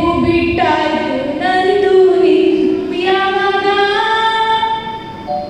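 A solo voice singing a melody into a microphone, amplified over the hall's speakers, in long held notes that slide from one pitch to the next.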